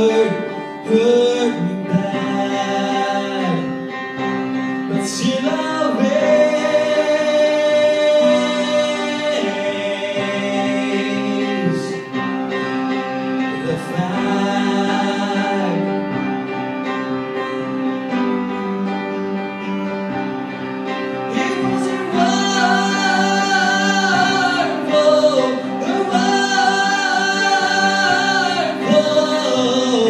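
A man singing a pop song into a microphone over instrumental accompaniment with guitar, his voice coming through a PA. Long held notes with vibrato stand out in the second half.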